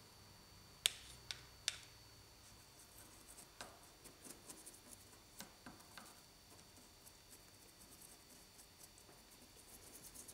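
Faint ticking and scratching of a fine paintbrush dabbing a watery black wash onto a rock-mould casting, with three sharper clicks about a second in.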